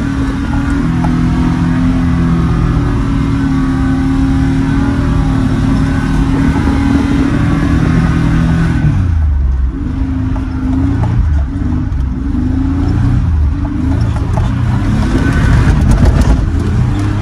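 Nissan D21 Hardbody pickup's V6 engine running steadily under load through sand, heard from inside the cab, over a heavy low rumble. About nine seconds in, the engine note drops, then rises and falls repeatedly as the throttle is worked.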